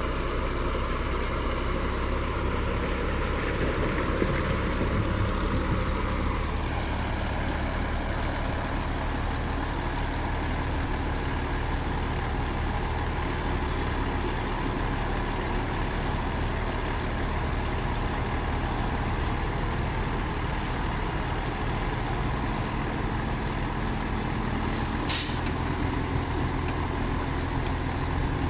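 Heavy diesel earthmoving machinery running steadily, with a short sharp hiss near the end.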